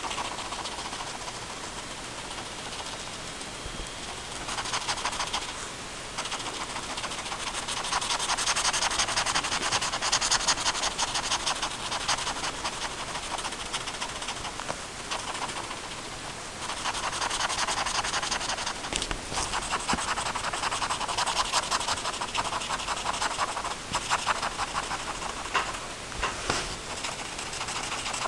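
Pen tip scribbling on paper in rapid back-and-forth strokes, filling in a dark area of a drawing. The scratching comes in louder and softer spells.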